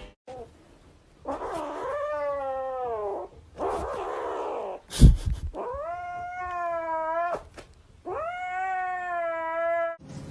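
Domestic cat caterwauling: a series of long, drawn-out yowls, each one to two seconds long, with short pauses between them. There is a sharp thump about five seconds in.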